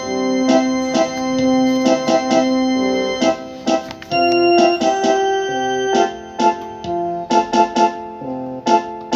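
Background music on an electronic keyboard: a melody of quick repeated notes over held tones.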